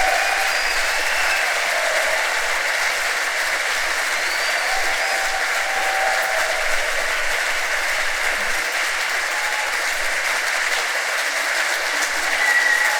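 Audience applauding steadily, a dense even clapping, with a few short voices calling out above it.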